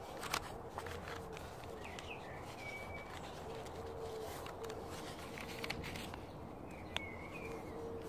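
Old book pages being folded by hand, with light paper clicks and rustles. Small birds chirp a few times, and a faint low hum comes and goes.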